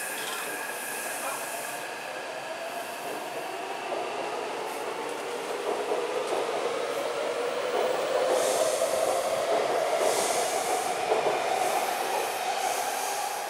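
Taipei Metro C381 train accelerating away from the platform. Its traction motor whine rises steadily in pitch over the running noise of wheels on rail, and is loudest as the last cars pass, a few seconds before the end.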